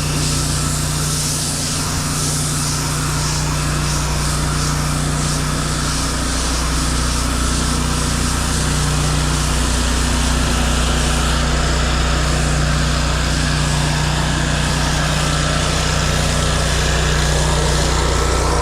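Gas-engine pressure washer running steadily, with water hissing from the spray wand as a soap mix is downstreamed onto pavers.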